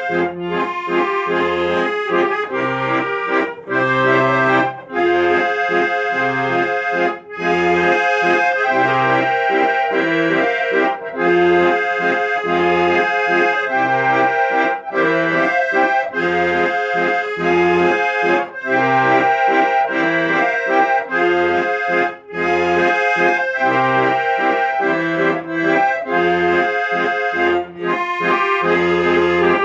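Accordion playing a melody of sustained notes over a steady rhythmic bass-and-chord accompaniment.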